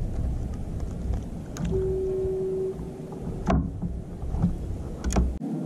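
Low wind rumble on the microphone with a few sharp knocks and handling thumps, of gear and hands against the inflatable kayak, while a caught fish is worked off the hooks. A short steady hum sounds for about a second, two seconds in.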